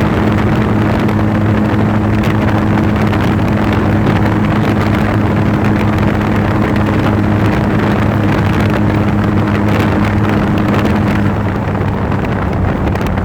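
Trike engine running steadily at highway speed, a constant low hum under heavy wind rush on the phone's microphone. About eleven seconds in, the engine hum fades and drops back, leaving mostly wind and road noise.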